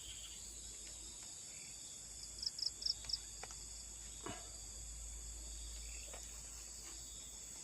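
Steady high-pitched insect chorus, with a short run of four or five quick chirps about two to three seconds in and a couple of faint clicks.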